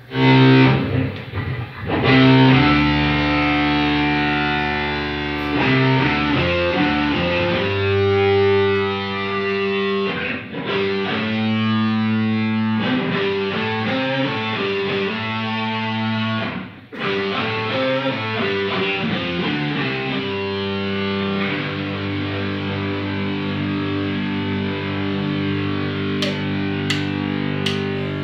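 Electric guitar played through distortion from a Boss multi-effects pedal: sustained, held notes stepping from pitch to pitch in a slow melodic line, with two short breaks, one about ten seconds in and one about seventeen seconds in.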